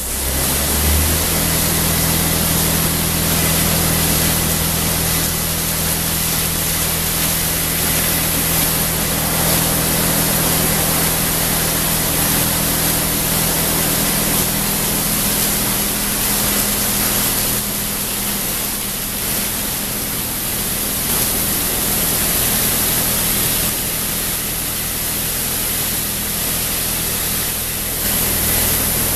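Automatic car wash running: water spray hissing over a car while the big spinning wash brushes work along it, with a steady low hum of the drive motors underneath. The hiss dips a little around two-thirds of the way in.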